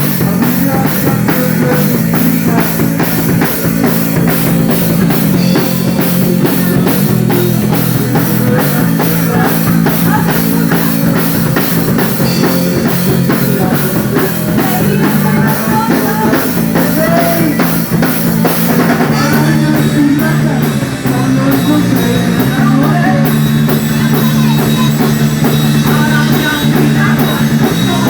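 Rock and roll band playing live, with a drum kit keeping a steady beat under electric guitar.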